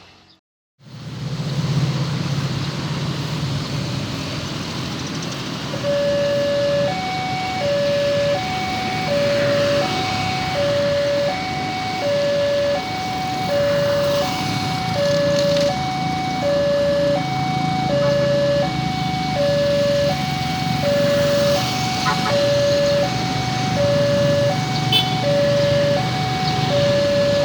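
Railway level-crossing warning siren, a newly fitted replacement, starting about six seconds in and sounding an even two-tone beep: a lower and a higher tone alternate, each held under a second, one pair about every one and a half seconds. Under it runs a steady low hum of traffic.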